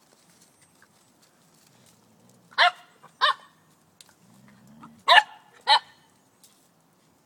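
Puppy barking at a larger dog in play: four short, high-pitched barks in two pairs, with a low rumble just before the second pair.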